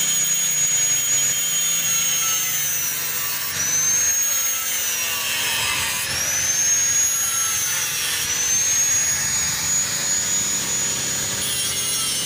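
Handheld angle grinder grinding a steel plate on a trailer chassis: a loud, steady high whine that dips in pitch about three times as the disc is pressed into the metal, then climbs back.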